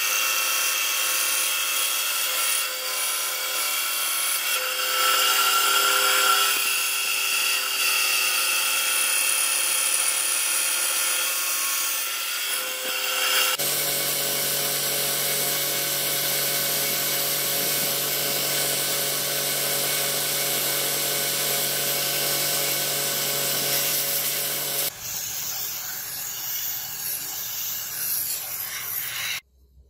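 A scroll saw runs steadily as it cuts a wooden block. About halfway through it gives way to a belt sander with a steady low hum, grinding the edge of the wood.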